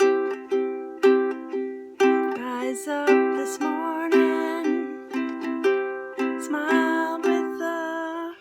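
A strummed stringed instrument playing chords in a steady rhythm, about two strums a second, each chord ringing and fading.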